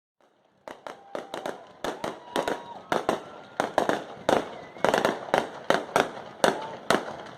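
Fireworks going off in a quick series of sharp bangs, about three a second, starting under a second in.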